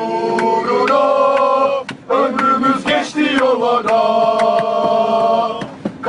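A large crowd of football supporters singing a terrace chant in unison, holding long notes, with a short break about two seconds in.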